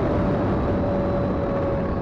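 Twin electric motors and propellers of an Eachine Airloader RC plane in cruise flight, heard on board: a steady motor whine under rushing wind noise, its pitch sagging slightly.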